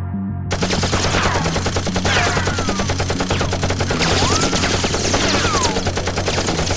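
Sustained rapid automatic-gunfire sound effect, a fast machine-gun rattle that starts about half a second in, with several falling whistling tones cutting through it. A steady bass line of background music runs underneath.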